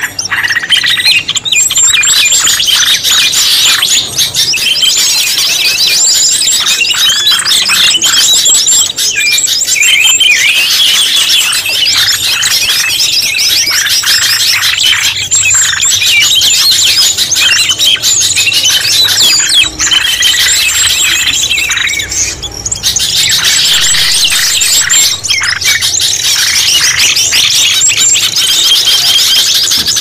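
Dense, unbroken chatter of many small birds: rapid high chirps and squeaky calls overlapping, with a few brief breaks. It is a bird-lure call (suara pikat) meant to draw forest birds in.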